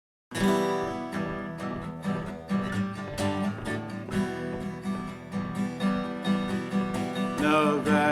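Strummed acoustic guitar playing a country-style song after a short moment of silence; a singer's voice comes in near the end.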